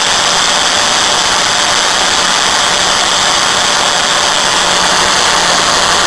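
Angle grinder running steadily at full speed, its disc cutting through a quartz glass heater tube from a microwave grill element: a loud, even whine.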